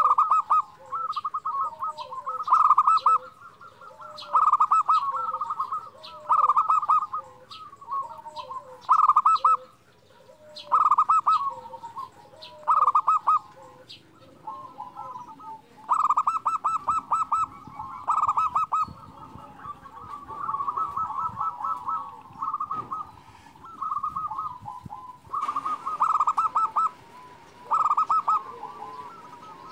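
Zebra dove (perkutut) singing its cooing song: short bursts of rapid, warbling coos repeated every second or two, some phrases running into one another.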